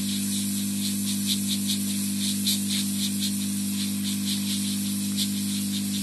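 Hot air rework gun blowing onto a phone circuit board: a steady blower hum and hiss of air, with irregular crackling as the flux paste on the board heats.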